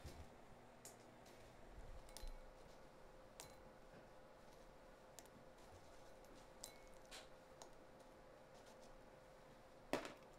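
Faint, scattered light clicks of small dried cereal marshmallow pieces dropped by hand into white bowls, with one louder click near the end. A faint steady hum lies beneath.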